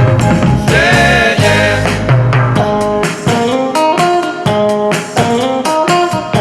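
Background music: a guitar-led tune with a steady beat, its bass line dropping out about three seconds in.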